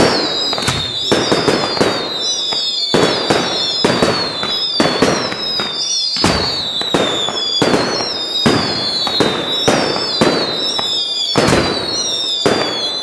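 Fireworks display: aerial shells bursting in a rapid, continuous run of sharp bangs, several a second. A high, wavering whistle that falls in pitch again and again runs over them.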